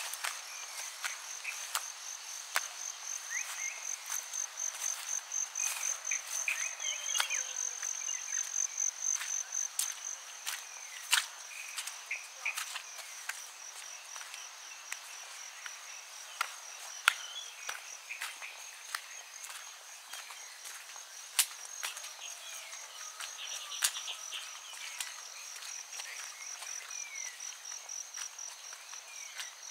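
Crickets chirping in a steady, fast-pulsing trill, with scattered short bird chirps and a few sharp clicks over it.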